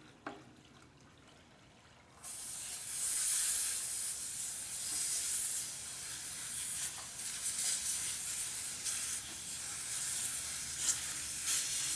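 Air hissing steadily out of a motorcycle tire through the open valve stem, its valve core unscrewed to deflate the tire. The hiss starts suddenly about two seconds in, after a small click.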